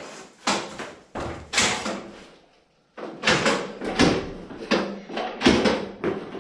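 Repeated knocks and thuds of plastic underfloor-heating pipe being stepped and pressed down into knobbed plastic insulation panels, about one or two a second, with a brief pause just before three seconds in.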